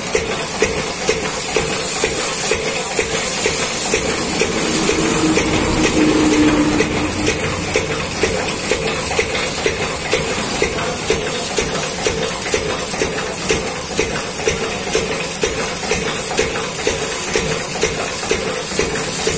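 High-pressure water jet hissing steadily as it sprays onto a combine harvester's metal body, with a steady hum underneath and many small irregular clicks of water striking.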